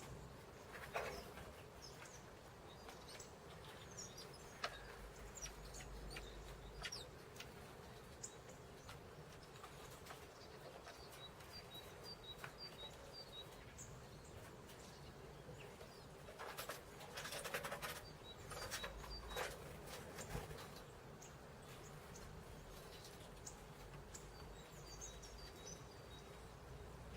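Small songbirds at a winter feeder giving scattered short, high chirps and call notes, including a quick run of repeated high notes, with a few brief rustling bursts, all faint.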